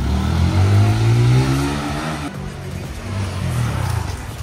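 Honda CBR125R's 125 cc single-cylinder engine revving up as the motorcycle pulls away, its pitch rising steadily for about two seconds. It then falls away sharply and runs on at a lower pitch as the bike moves off.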